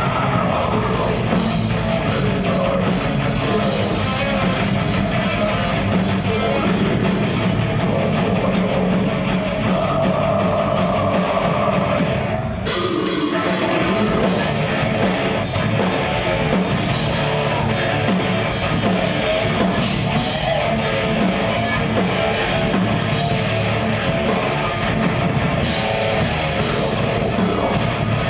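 Live heavy metal band playing: distorted electric guitars and a full drum kit, with a brief break about twelve seconds in before the band comes back in.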